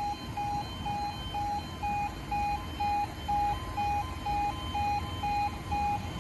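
Level crossing audible warning alarm sounding an even, repeating beep about twice a second while the barriers are down, warning that a train is approaching.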